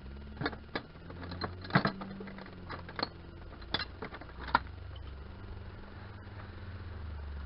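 Metal hand tools (sockets, wrenches, pliers) clinking and rattling against each other in a plastic toolbox as gloved hands rummage through it, about a dozen sharp clinks in the first four and a half seconds, with a low steady hum underneath.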